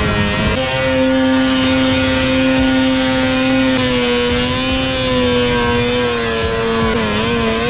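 Snowmobile engine running hard at high, near-steady revs, its pitch dipping and recovering a couple of times near the end as the throttle eases off and comes back.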